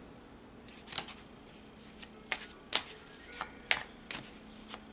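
A deck of tarot cards being shuffled by hand: a string of sharp, irregular card clicks and slaps.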